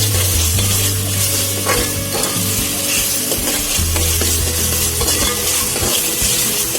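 Ginger-garlic paste and ground onion sizzling as they fry in hot oil in a pot, stirred with a spoon.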